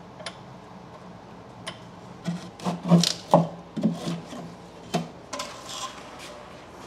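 Heavy wooden pallet timbers knocking and scraping against each other as they are pried loose and pulled out, in a burst of irregular wood-on-wood clunks from about two to five seconds in.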